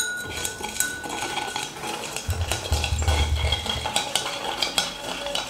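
A glass stirring rod clinking and scraping quickly against the inside of a glass beaker, with a faint glassy ringing, as sodium hydroxide crystals are dissolved in a little water.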